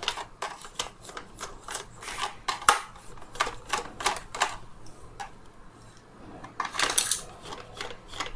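Phillips screwdriver working screws in a Dyson V10 vacuum's plastic body, with the body being handled: a run of irregular small clicks and ticks. They thin out for a second or so past the middle, then come back in a louder cluster near the end.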